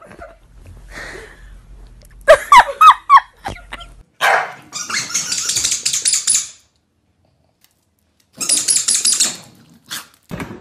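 A kitten making a quick run of short, high-pitched, squeaky calls while eating a slice of pizza, about two seconds in. Then come two stretches of hissy, scratchy noise while small dogs play on a hard floor.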